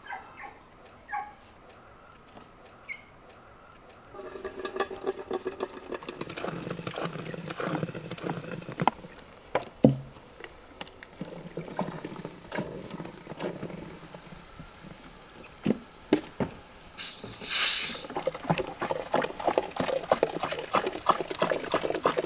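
Coca-Cola poured from plastic bottles into a large cup, glugging and fizzing with a dense crackle, starting about four seconds in. A brief loud hiss sounds about three-quarters of the way through.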